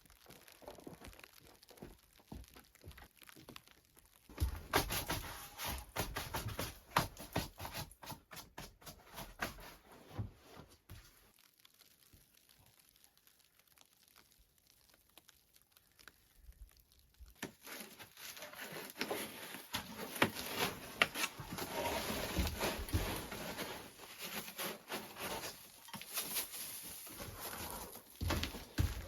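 Irregular crinkling and rustling in two stretches, with several seconds of near silence between them.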